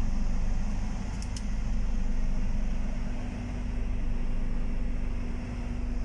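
High-speed passenger ferry's engines running steadily under way, heard from inside the wheelhouse: an even low rumble with a steady hum.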